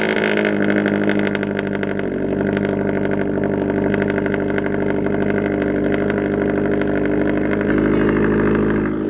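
Subaru BRZ's 2.0-litre flat-four engine idling steadily just after a cold start. The running note is even, and not that loud now that the exhaust is broken in.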